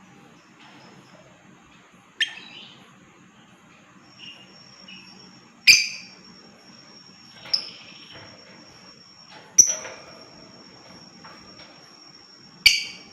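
Lovebird giving short, sharp, shrill calls, five of them a few seconds apart, over a thin steady high-pitched whine.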